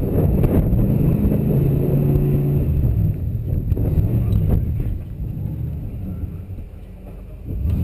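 Off-road vehicle's engine revving unevenly under load as it crawls up over rocks. It drops noticeably quieter from about five seconds in, then rises again right at the end.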